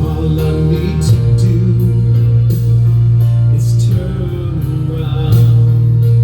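Recorded song playing: guitar over sustained bass notes that change a few times, during a break between sung lines.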